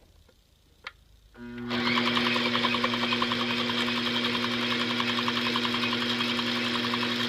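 Pfaff semi-industrial sewing machine starting up about a second and a half in after a faint click, then running at a steady speed. Its motor hums steadily under a fast, even ticking of the stitching.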